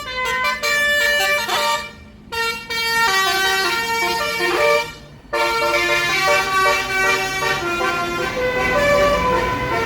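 A bus's Basuri 'telolet' multi-tone horn playing a quick tune of stepped notes. It breaks off briefly about two seconds in and again about five seconds in.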